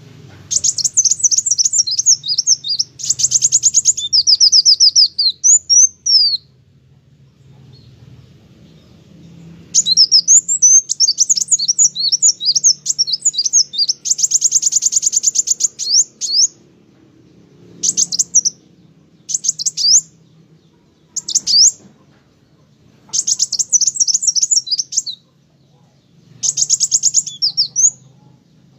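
Kolibri wulung sunbird singing vigorously: rapid, high-pitched trilled and twittering phrases, some a second long and some several seconds, broken by short pauses.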